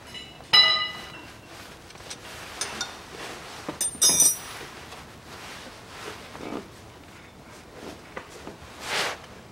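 Metal hand tools and parts clinking in an engine bay: a sharp ringing clink about half a second in, a cluster of clinks around four seconds, and a brief rustle near the end.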